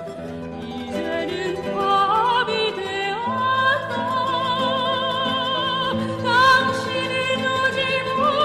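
Operatic soprano singing a slow melody with wide vibrato over a plucked-string accompaniment, the voice rising to long held notes about two to three seconds in.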